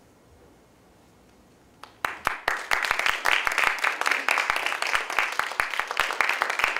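A quiet room, then an audience starts applauding about two seconds in, dense clapping that carries on steadily.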